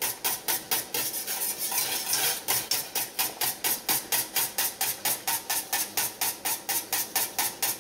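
Wire whisk beating against the inside of a steel saucepan, about five quick strokes a second, as cornmeal is whisked into boiling water for polenta.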